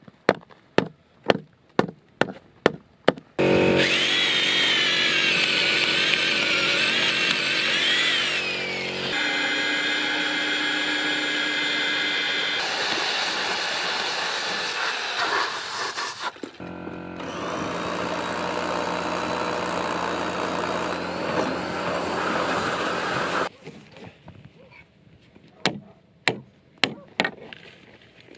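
A sledgehammer knocking a timber beam into its lap joint, about eight sharp blows. Then an electric drill with a long bit boring through the timber for some twenty seconds, its whine wavering and shifting. Near the end comes a run of hammer blows on a pin in the beam.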